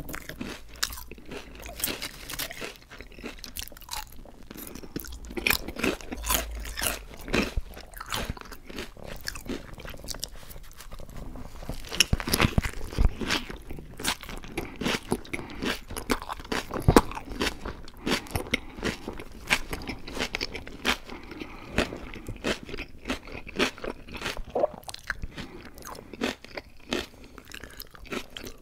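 Close-miked eating: a steady run of sharp crunching bites and chewing, with the loudest bites about halfway through.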